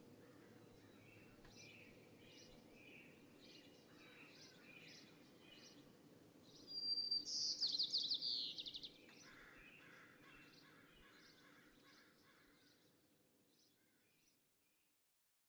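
Birdsong over a faint steady outdoor background: repeated short high chirps, with a loud rapid trill that falls in pitch about seven seconds in. The sound fades out near the end.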